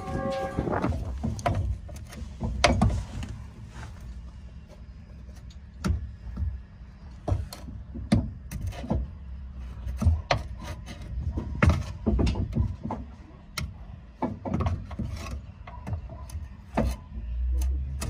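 Irregular metallic knocks, clanks and rattles of tools and a rear coilover strut being handled and worked into place, many sharp strikes at uneven intervals over a low rumble.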